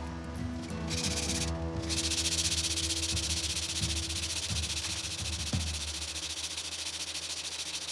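Harbor Freight mini wood lathe running, with sandpaper held against the spinning ipe drumstick blank. A steady motor hum lies under a soft, even sanding hiss. There is a single click about five and a half seconds in.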